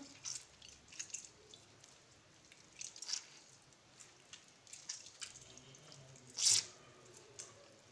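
Wet squelching of mozzarella curd and water splashing and dripping in a steel bowl as hands squeeze the water out of the curd and stretch it in hot water. The sounds are scattered and short, with the loudest splash about six and a half seconds in.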